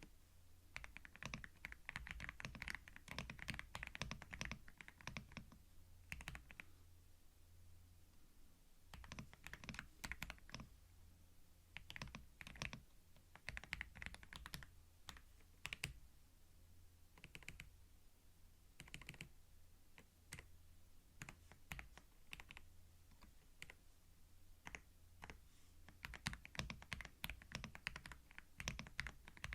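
Computer keyboard typing, heard close up: runs of quick key clicks broken by short pauses, the busiest stretches near the start and near the end. A faint steady low hum sits underneath.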